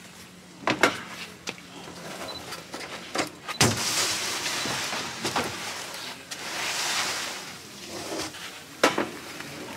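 Covers being lifted off a steaming clambake pit: steam hissing out in two long rushes, with rustling and several sharp knocks and clunks against the steel pit walls.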